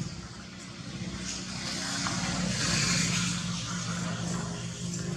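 A motor vehicle's engine running with a steady hum, growing louder to a peak about three seconds in, then easing slightly.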